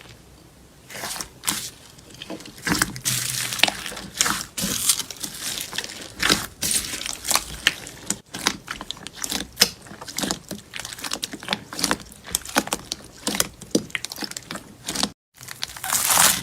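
Slime being squeezed, pressed and poked by hand, making dense, irregular crackling clicks and pops with a crunchy texture. There is a brief dropout about 15 seconds in.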